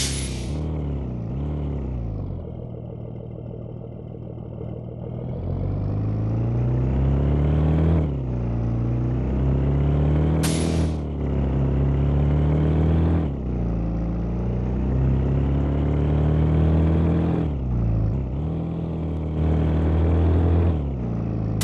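Bus diesel engine settling low, then pulling away and accelerating through the gears: its pitch climbs and drops back at each of about four gear changes. A sharp hiss of air, as from the air brakes, comes at the start and again about ten seconds in.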